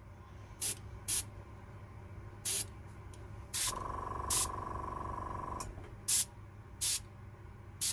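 Airbrush trigger pressed in about eight short bursts of hissing air. About halfway through, the kit's small airbrush compressor runs for about two seconds with a steady whine, topping up its pressure, then switches off.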